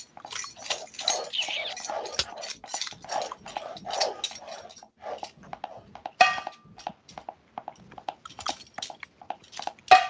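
Re-created cartoon Foley: a rapid, irregular patter of short hand- and mouth-made knocks, clicks and smacks, with a brief squeak about six seconds in.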